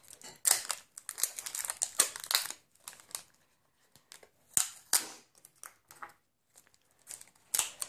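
Clear plastic wrap crinkling and crackling in irregular bursts as it is peeled off a small plastic toy capsule.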